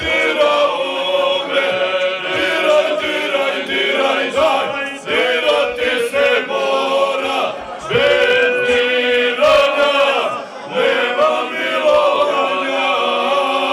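A group of men singing a traditional Bosnian Krajina folk song together, in long held phrases with short breaks about five, eight and ten and a half seconds in.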